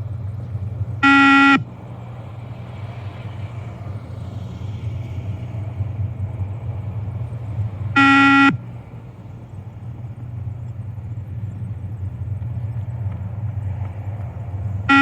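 Two single electronic beeps from a shuttle-run (beep test) recording, each about half a second long and about seven seconds apart, each marking the moment a runner must reach the next line. A steady low hum runs underneath.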